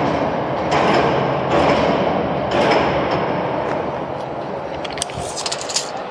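Overhead crane running as it carries the haul-off unit hanging in its slings, a steady mechanical noise that slowly eases, with a quick run of sharp clicks near the end.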